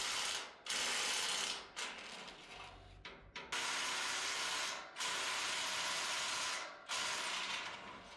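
A power tool run in repeated trigger bursts of one to two seconds each, starting and stopping abruptly, with short pauses between them.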